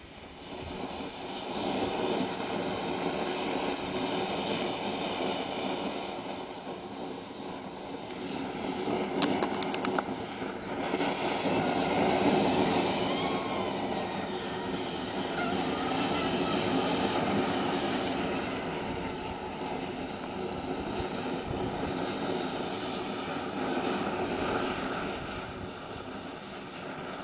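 A 36 V lithium battery pack burning in thermal runaway: a steady rushing, jet-like flame noise from the venting cells that swells and fades, loudest in the middle. A few sharp crackles come about nine to ten seconds in.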